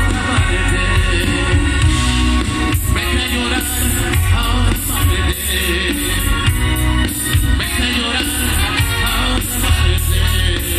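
Grupero band playing live: a lead singer over saxophone, electric guitars, drum kit and Latin percussion (timbales and congas), with a strong bass.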